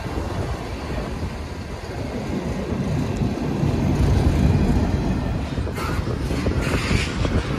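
Freight cars rolling past close by, steel wheels on the rails making a steady rumble that swells about midway, with some sharper clatter near the end.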